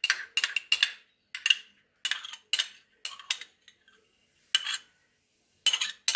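Metal spoon scraping sour cream out of a small glass jar, clinking and scraping against the glass in a quick, irregular series of strokes that thin out in the second half.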